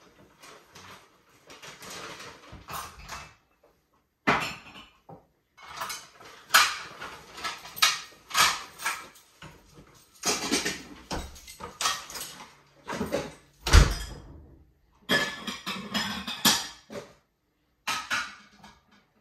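Dishes and pots clattering as they are handled: irregular clinks and knocks, with one heavier thump about two-thirds of the way through.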